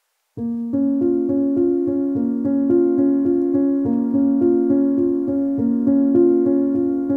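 Background music: a keyboard playing a steady run of repeated notes, about three a second, starting about half a second in.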